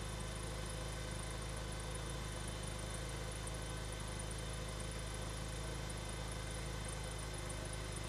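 Steady machine hum with an even hiss and several constant tones, from a tracked robotic combat vehicle standing still and powered up.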